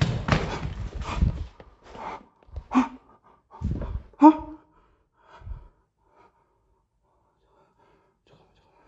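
A man breathing hard in short huffs and gasps, some with a bit of voice, over rustling handling noise during the first second and a half; it goes quiet after about six seconds.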